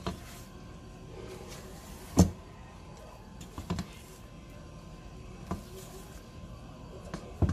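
Silicone spatula folding thick cake batter in a stainless steel mixing bowl, with about five sharp knocks of the spatula against the metal bowl at irregular intervals, the loudest a little after two seconds in, and soft scraping between them.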